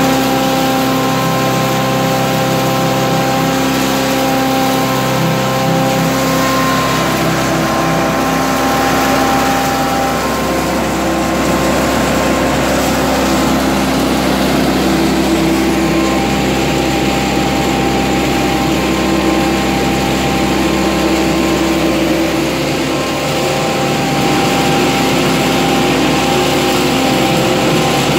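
Cashew-nut-shell crushing and pellet-forming plant running: electric motors, the crusher and the conveyors make a steady, loud mechanical hum with several steady tones. The mix of tones changes about 8 to 10 seconds in.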